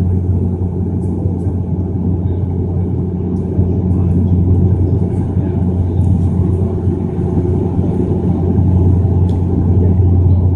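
Steady low drone of a Bombardier Q400 turboprop heard inside the passenger cabin in flight: the propeller and engine hum of its Pratt & Whitney PW150A engines turning six-bladed propellers, holding an even pitch.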